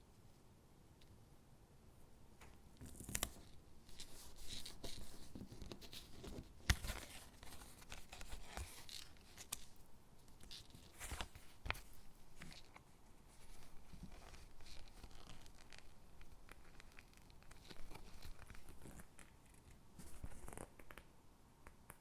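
Stickers being peeled from their backing and pressed onto paper gingerbread cutouts: irregular soft peeling and paper rustling with scattered sharp taps and clicks, starting a couple of seconds in.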